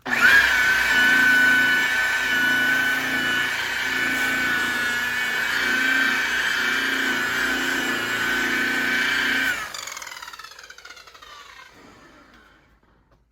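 Electric high-speed buffer (rotary polisher) starting up and running at a steady whine while buffing a headlight lens. About ten seconds in it is switched off and winds down, its pitch falling away over a few seconds.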